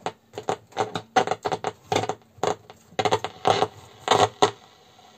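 VEF portable transistor radio crackling and clicking through its speaker in irregular bursts as its shortwave band is tuned, with no station coming in. The owner puts the poor shortwave reception down to oxidised contacts on the band-switch drum.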